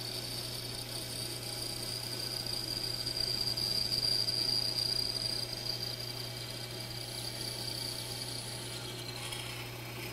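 Bandsaw running with a 1/8-inch, 14-teeth-per-inch blade cutting a tight curve through a glued-up wood blank: a steady low hum under a thin, high whine that grows louder around the middle.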